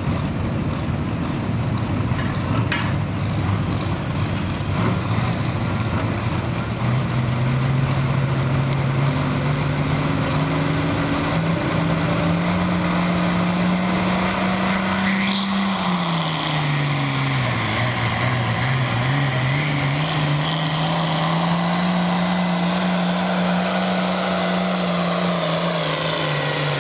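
International Harvester hot farm pulling tractor's diesel engine revving up and running hard under load as it drags a weight sled. Its pitch climbs, sags once about halfway through, climbs back, then falls near the end.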